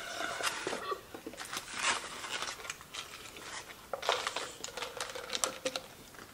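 Crinkling and rustling of takeout food packaging being handled at the table, with a run of small clicks and taps about five seconds in.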